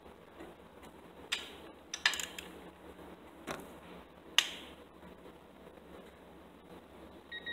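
Ratchet and socket on intake manifold bolts of a Ford 302 V8, giving a few sharp metallic clicks, the loudest about four and a half seconds in. A digital torque adapter gives a short beep near the end.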